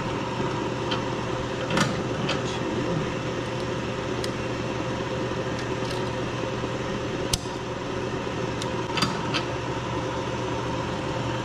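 Steady hum of a running shop machine, with a few light metallic clicks and taps as a snap ring is seated on a transmission overdrive unit, the sharpest about seven seconds in.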